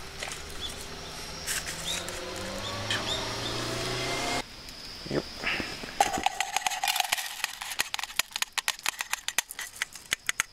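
A kindling fire crackling in a steel fire grill, with a faint rising tone under it. After a break about four seconds in, rapid dense clicking and rattling as rice is tipped from a metal mesh strainer into a pot.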